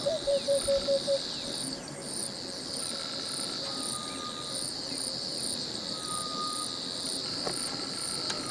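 Insects, crickets or similar, trilling in a steady high shrill chorus that breaks off and resumes, with a faster pulsing chirp above it about twice a second. In the first second a quick run of low, evenly spaced notes sounds over the chorus and is the loudest thing heard.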